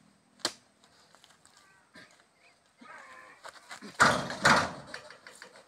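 Oil palm fresh fruit bunches hoisted onto a wooden-sided truck bed: a sharp tap near the start, then a heavy double thud with rustling about four seconds in as a bunch lands on the load.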